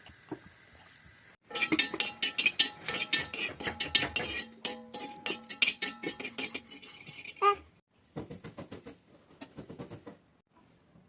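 A utensil clinking and scraping rapidly against a small ringing vessel, as when something is stirred or mixed. The clinking starts about a second and a half in and runs quickly for about six seconds, then pauses and comes back as lighter clinks for about two more seconds.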